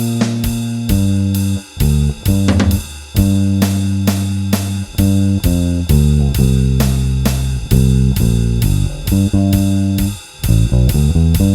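Electric bass guitar, a Bronco bass with a G+B Toaster neck pickup and flatwound strings, played without a compressor. It plays a blues bass line over a drum track with a steady cymbal beat, and runs through a quick string of short notes near the end.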